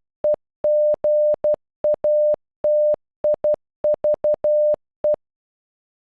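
Generated Morse code beep tone sending the letters E, G, A, T, I, V, E of the word "negative" (. --. .- - .. ...- .) as short dots and long dashes of one steady pitch. The keying stops about five seconds in.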